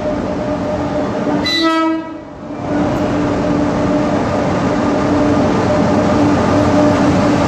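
WAP-7 electric locomotive and its train running in along a station platform with a steady loud running noise and hum, sounding one short horn blast about a second and a half in.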